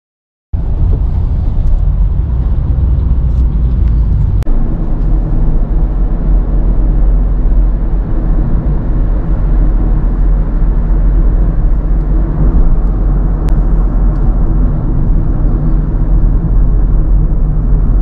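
Steady low rumble of road and engine noise inside a moving car's cabin, starting abruptly about half a second in, with a click and a slight change in the rumble about four seconds in.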